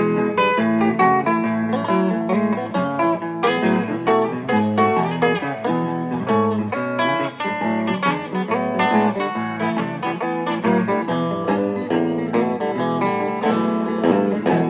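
A plucked string instrument playing a boogie tune: a busy run of picked notes over a repeating bass line, steady to the end.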